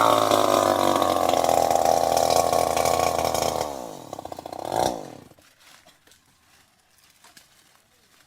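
Chainsaw engine running at steady high revs, then winding down about three and a half seconds in and cutting out about five seconds in.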